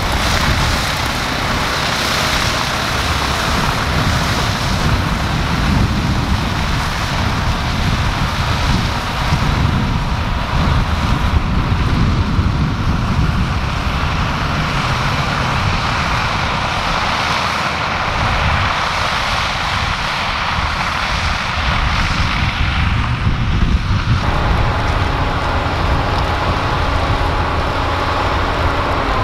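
Agco Challenger tractor's diesel engine running steadily under load while it pulls a working manure spreader, with wind buffeting the microphone. About 24 s in the tractor sounds closer, and a steady engine hum with a higher whine comes through.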